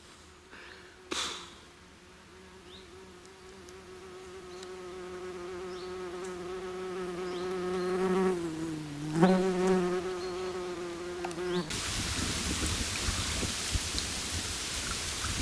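A flying insect buzzing close by at one steady pitch, growing louder as it nears the microphone, with a brief dip and recovery in pitch about nine seconds in. Near the end the buzz cuts off abruptly and a steady rushing noise takes over.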